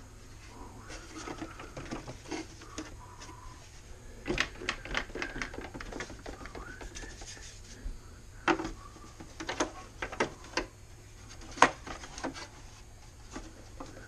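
Plastic vacuum cleaner housing being handled on a workbench: irregular clicks, taps and knocks of hard plastic parts against each other and the bench, in two clusters, the sharpest knock about two-thirds of the way through.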